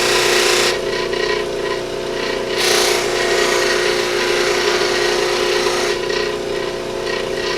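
Motor-driven buffing wheel running with a steady hum while an antler pen blank is pressed against it, making a loud hissing rub as the compound polishes down high spots of CA glue. The rub drops away twice, about a second in and again near the end, as the piece is eased off the wheel, and comes back in between.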